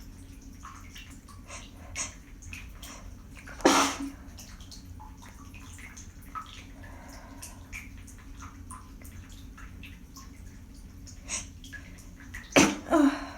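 A person sneezing after holding sneezes back: one loud sneeze about four seconds in and a double sneeze near the end, over a steady hiss of running water.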